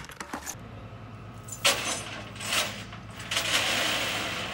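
Flatbed tow truck's engine idling with a steady low hum, with several bursts of rattling noise over it, the longest near the end, as a vehicle is loaded onto the tilted bed.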